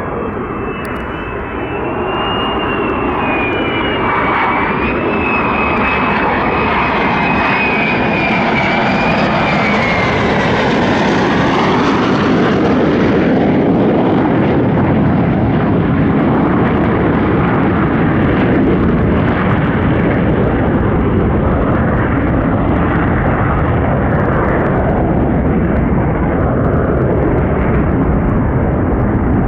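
F-35A fighter's Pratt & Whitney F135 jet engine in flight: a high whine slides down in pitch over the first ten seconds or so as the jet passes, then gives way to a loud, steady rumble.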